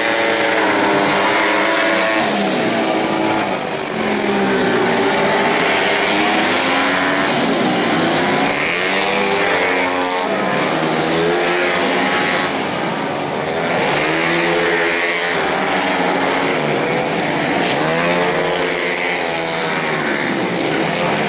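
Small race motorcycles revving hard as they pass one after another, several engines overlapping. The engine pitch falls as they brake and shift down for corners, then climbs again under acceleration, again and again.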